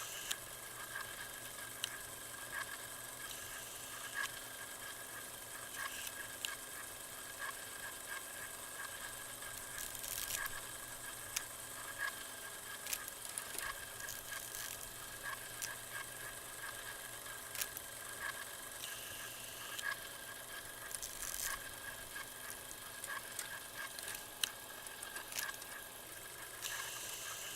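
Steady static hiss with a low hum and a thin high tone underneath, broken by scattered crackles and clicks.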